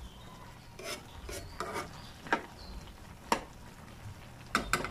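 Metal spoon stirring a wet mix of ground beef and vegetables in a frying pan, scraping the food and knocking against the pan with several short sharp clicks, the loudest a close pair near the end.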